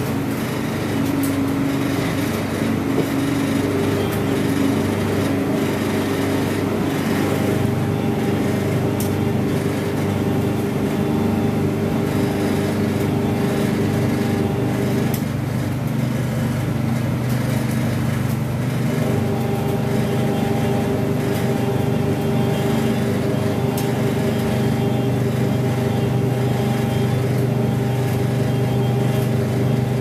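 IPSO 25 lb commercial front-loading washing machine running a hot wash: a steady motor hum with sudsy water sloshing in the turning drum. About halfway through, part of the motor's hum drops away for a few seconds, then comes back.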